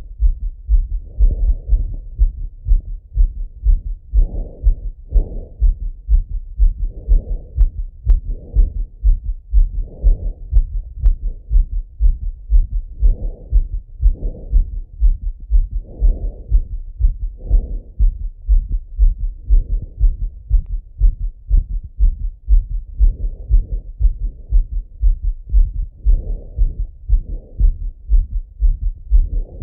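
A man's heartbeat heard through a Littmann stethoscope: a fast, regular lub-dub of low thumps, raised by running.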